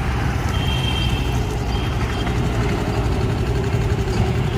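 A motor vehicle engine idling steadily, a constant low rumble.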